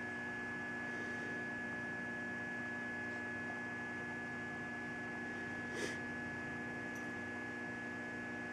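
Steady electrical hum with a constant high whine, with a brief faint rustle about six seconds in.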